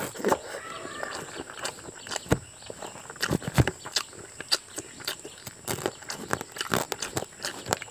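Close-miked eating sounds: wet mouth clicks, lip smacks and chewing as handfuls of rice are pushed into the mouth by hand, in an irregular run of short sharp sounds.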